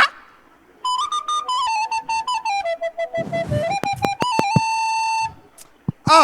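A flute playing a slow melody of held notes that step up and down. It starts about a second in and stops briefly near the end, with a few sharp knocks around the middle.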